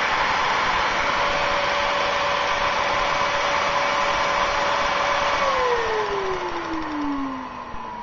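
Hand-held vacuum cleaner running, its outlet air driving a small homemade air engine. About five seconds in the vacuum's motor whine starts falling steadily in pitch and the sound dies away as the motor spins down.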